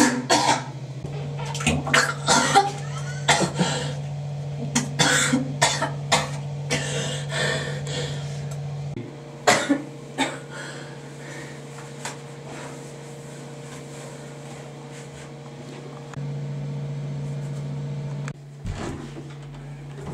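A person retching and coughing over a toilet bowl, being sick in a run of short, loud heaves for the first nine seconds and once more shortly after, over a steady low hum.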